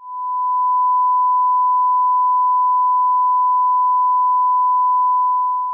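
A steady electronic test tone: one pure, unbroken high beep held at a single pitch and level, swelling in briefly at the start.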